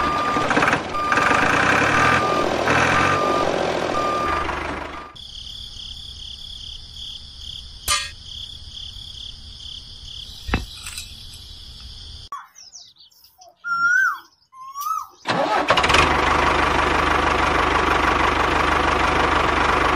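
Tractor engine sound effect with a row of short, evenly spaced beeps over the first few seconds. It gives way to a quieter, steady high whine, a brief near-silent gap with a short gliding whistle, and then the engine sound again for the last few seconds.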